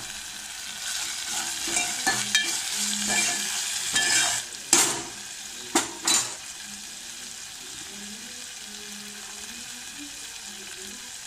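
Spices, green chillies and curry leaves frying in hot oil in a steel pot for a tadka, sizzling, with fresh coriander just added. A spoon stirs and knocks against the pot several times in the first half, then the sizzle settles to a steady, quieter hiss.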